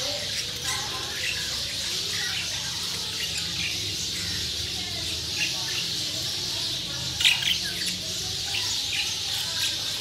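A flock of caged budgerigars chattering and chirping continuously, with a louder cluster of squawks about seven seconds in.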